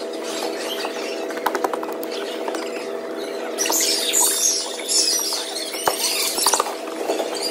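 Volleyball gym ambience: a steady hum with scattered knocks, then from about halfway through, bursts of high chirping squeals as the players celebrate a point, from sneakers squeaking on the hardwood and the players' high-pitched cheering.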